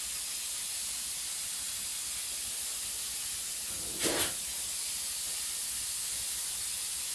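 A steady high hiss, with a brief, louder burst of noise about four seconds in.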